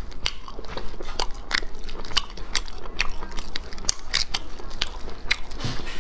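Stir-fried snails' shells clicking and cracking as gloved fingers pick them apart, mixed with close chewing; a rapid, irregular run of sharp clicks, several a second.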